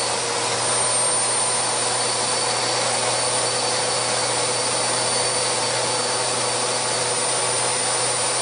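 Bagless vacuum cleaner running steadily at full speed: a constant motor whine over a rush of air.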